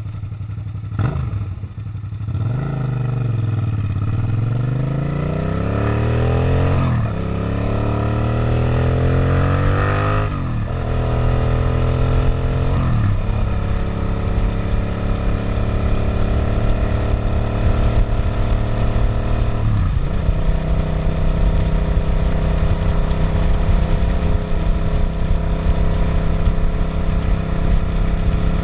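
Suzuki SV650 V-twin motorcycle engine pulling away and accelerating through the gears, the revs climbing and dropping back at upshifts about seven, ten and thirteen seconds in. It then holds a steady cruising speed, with a brief dip in revs about twenty seconds in and again near the end.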